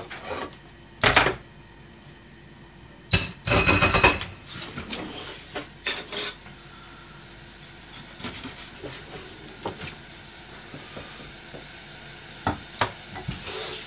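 Kitchen clatter: pans, dishes and utensils knocked and set down several times, loudest in the first half. Under it is a steady low hiss from the sake-and-sugar liquid heating in a pan on a gas burner.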